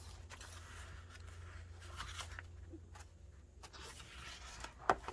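Pages of a handmade paper-and-fabric journal being turned and handled: soft paper rustling with scattered light taps, and one sharp tap near the end, over a steady low hum.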